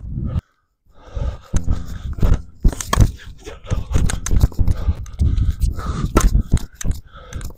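Tennis rally: sharp pops of racket strings striking the ball, ball bounces and scuffing footsteps on the court, coming every second or so.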